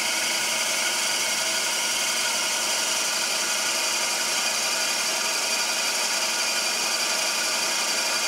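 Vertical milling machine running, its end mill cutting a metal instrument housing clamped in the vice. The sound is a steady hiss with several steady tones, holding level without change.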